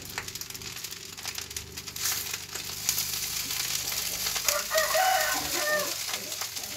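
Fried rice sizzling in a pan over a gas flame, with a metal spatula clicking and scraping against the pan as it is stirred; the frying gets louder about two seconds in. A rooster crows once, about four and a half seconds in, lasting just over a second.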